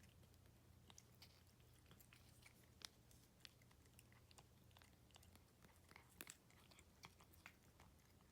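A cat chewing wet cat food: faint, irregular small smacks and clicks.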